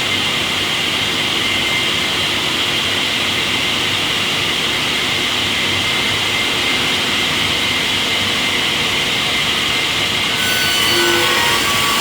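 Sawmill machinery running steadily with a loud even hiss and a faint steady whine. Near the end, thin high whistling tones join in and it gets slightly louder.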